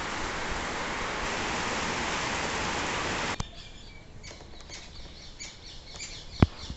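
Heavy rain falling in a steady hiss that cuts off abruptly about three and a half seconds in. Then comes a quieter outdoor background with small birds chirping and one sharp click near the end.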